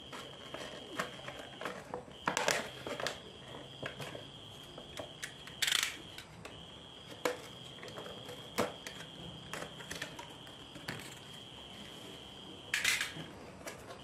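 Cardboard and clear-plastic toy packaging being handled and opened: scattered clicks and taps, with three louder crinkling, tearing rustles as tape or a flap is pulled. A steady high-pitched insect trill, typical of a cricket, runs underneath and breaks off briefly a few times.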